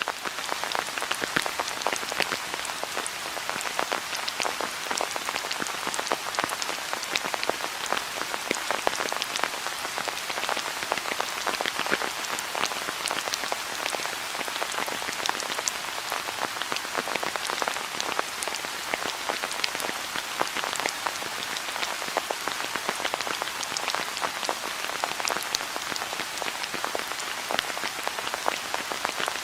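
Steady rain with many individual raindrops pattering and ticking on a hard surface.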